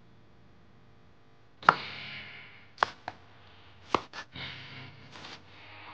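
Chef's knife chopping vegetables on a wooden cutting board: a handful of sharp, separate strikes, the first the loudest, over a steady hiss that begins about a second and a half in.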